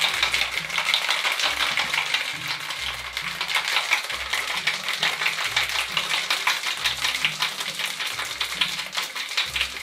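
Ice cubes rattling fast and hard inside a metal cocktail shaker, given a good hard shake to chill the drink.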